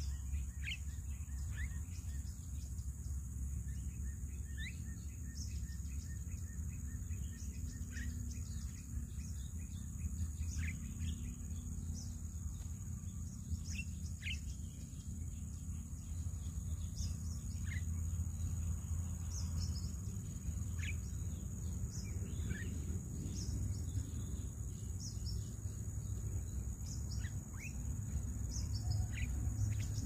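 Scattered short, sharp bird chirps, over a steady high-pitched insect drone and a constant low rumble that is the loudest part.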